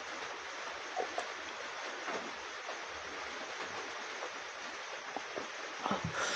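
A person drinking water from a glass, a few faint gulps and clicks over a steady hiss, with a short burst of louder mouth sounds near the end.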